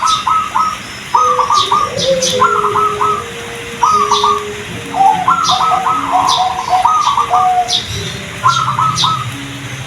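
Zebra doves (perkutut) cooing in short, rapid trilled phrases, repeated every second or so, with a lower-pitched dove overlapping about halfway through. Short high chirps from small birds come in between.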